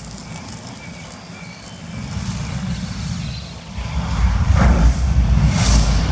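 Sound effects of a projection-mapping show played over loudspeakers: a low rumble that swells loud about four seconds in, with two whooshing sweeps.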